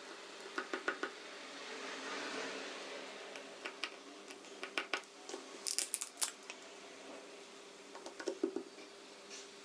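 Small hand tools clicking and tapping on the internal metal and plastic parts of an iPhone 4S during reassembly: clusters of light, sharp ticks, with a faint steady hum behind.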